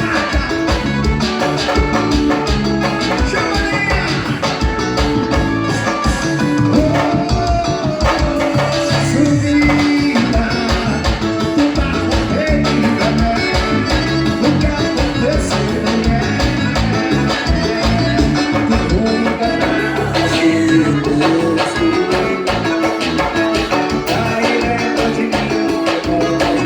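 Upbeat Brazilian forró band music with a steady beat.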